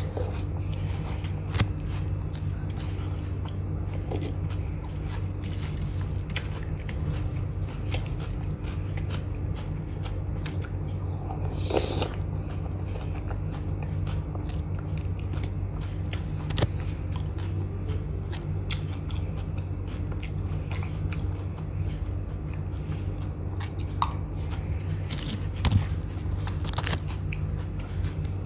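Close-up eating sounds: biting and chewing spoonfuls of dahi puri, crisp puris with curd, with scattered short crunches over a steady low hum.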